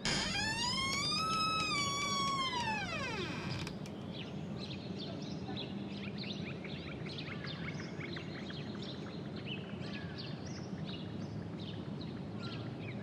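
A long pitched tone with many overtones rises and then falls over about three seconds. It is followed by many birds chirping over a steady background hiss and a low hum.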